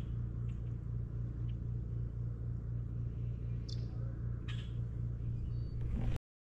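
A steady low rumbling hum with a few faint, short high chirps over it. A brief scuffle near the end, then the audio cuts off dead about six seconds in as the camera's battery dies.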